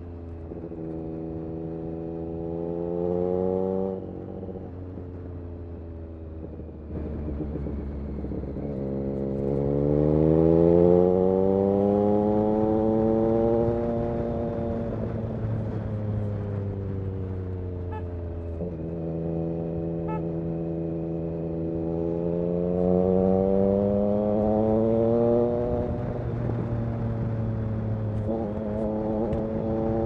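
Triumph Street Triple RS 765's inline three-cylinder engine through an SC Project S1 exhaust, recorded on board while riding. Its pitch rises and falls as the throttle is opened and eased off, with a sharp drop about four seconds in. The longest, loudest climb comes about ten seconds in and then falls away slowly.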